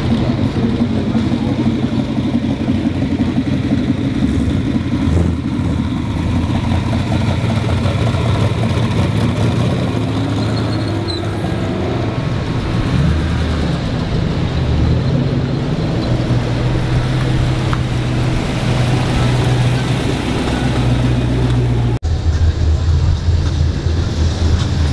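Car engines running, their low rumble rising and falling as they rev.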